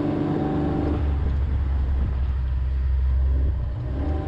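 Kawasaki Mule Pro FXR side-by-side driving along a gravel wash: its engine runs with a steady low drone that grows louder from about a second in and eases near the end, over rough tyre noise on gravel.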